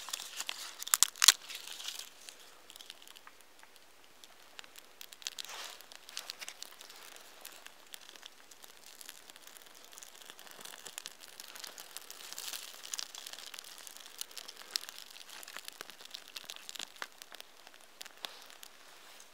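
A small fire of tinder on split logs crackling and hissing as it catches, with crinkling and rustling as more tinder is added by hand and dry twigs are laid over it. A few sharp snaps about a second in are the loudest sounds.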